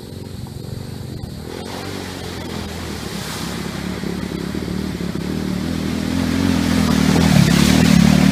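Off-road go-kart's engine approaching and growing steadily louder as the kart ploughs through a muddy water puddle, with water splashing from its wheels. It is loudest as it passes close near the end.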